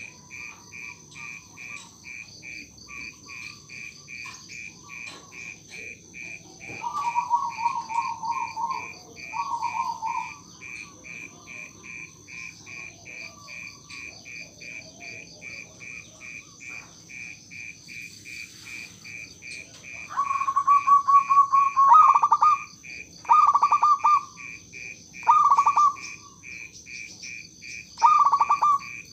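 Zebra dove (perkutut) cooing in rolling, trilled phrases: two short phrases, then after a pause a longer one followed by three short ones. A steady high chirping, about three pulses a second, goes on underneath throughout.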